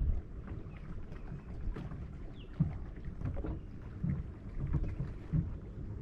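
Low rumble of wind and water noise on the microphone, with soft knocks here and there.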